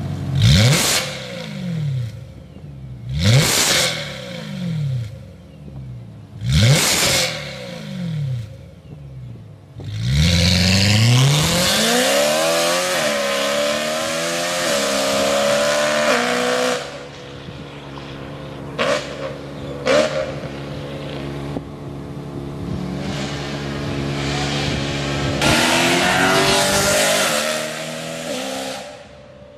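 BMW E92 M3's V8 through an Innotech valved exhaust with the valves open: three sharp revs about three seconds apart at standstill. Then the car pulls away hard, the pitch climbing and dropping back with each upshift as it goes off into the distance. Later come two short sharp blips and another loud spell of engine sound that cuts off near the end.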